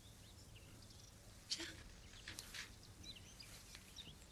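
Faint, scattered bird chirps over quiet background ambience, with a couple of soft knocks about one and a half and two and a half seconds in.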